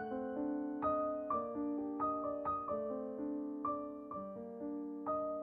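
Background music: a gentle piano melody, notes struck one after another and left to ring.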